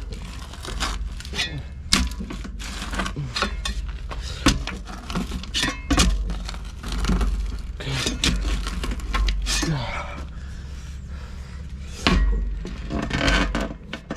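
Irregular knocks, cracks and scrapes of hand work, about a dozen sharp hits, over a steady low rumble.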